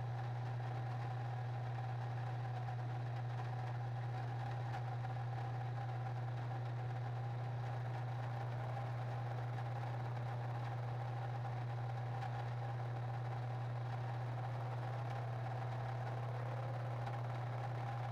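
Steady, unchanging machine hum with a fainter higher tone above it, like a motor running continuously.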